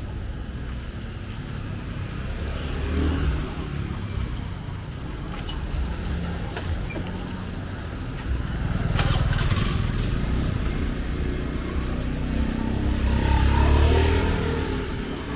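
Passing motor traffic: engines rumbling and swelling as vehicles go by, several times over, with one sharp click about nine seconds in.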